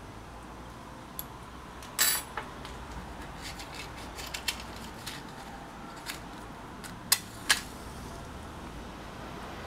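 Small hard objects being handled and set down on a lab bench: a short clatter about two seconds in, scattered light ticks, then two sharp clicks near the end.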